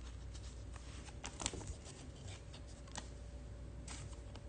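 Chrome trading cards being handled: faint slides and rustles of the cards against each other and the fingers, with a few light clicks, the sharpest about a second and a half in and at three seconds, over a low steady hum.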